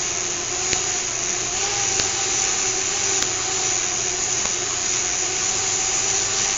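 Small fischertechnik electric motor spinning a propeller, a steady whir with a constant hum-like tone, plus a few faint ticks. The propeller runs without pushing the monorail carriage along the track.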